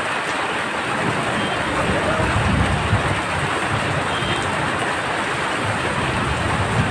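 Heavy rain falling steadily, with a low rumble about two to three seconds in.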